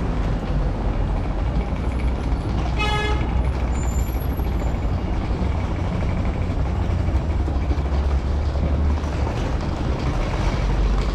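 Busy city street traffic with buses running, a steady rumbling noise, and one short tonal toot about three seconds in.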